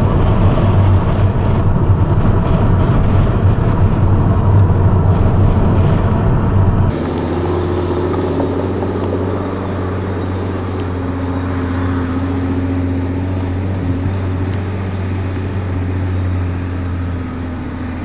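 Loud road rumble of a vehicle following a fire tanker truck. About seven seconds in, it changes abruptly to the truck's own diesel engine running steadily as the truck drives off along a dirt track.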